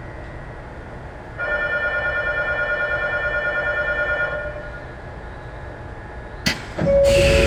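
Platform departure bell ringing steadily for about three seconds at a station, heard from inside a standing commuter train over its low background hum. Near the end comes a sharp knock, then a loud rushing noise with a steady tone.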